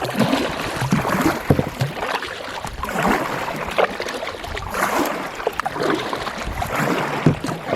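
Fast water splashing and gurgling over rocks at a waterfall, a loud, irregular churn of bubbling and splashes.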